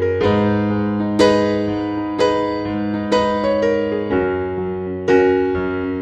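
Background music: a piano playing slow chords, a new chord struck about once a second and left to fade.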